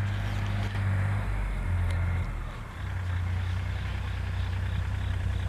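Engine of a peanut harvesting machine running steadily with a low hum, dipping briefly a little under three seconds in.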